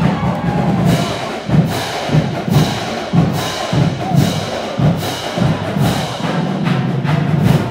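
Marching band drumline playing a cadence, with sharp crisp hits roughly every two-thirds of a second over a steady low drum rumble; it stops at the end.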